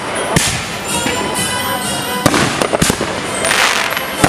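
Consumer fireworks going off in quick succession: a string of sharp bangs and pops at uneven spacing, with crackling and hissing between them and a longer crackling hiss near the end.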